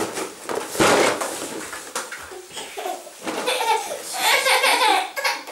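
A young child's voice, laughing and babbling, in the second half. About a second in there is a short rustle of the big cardboard box being handled.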